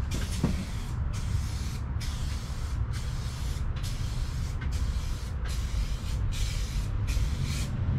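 Adhesion promoter being sprayed onto a plastic bumper corner in short hissing passes, about one a second with brief breaks between, over a steady low hum.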